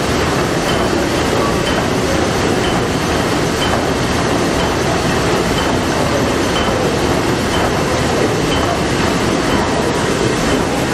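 Liberty ship's three-cylinder triple-expansion steam engine running at full speed: a loud, steady machinery din with a light tick repeating about twice a second.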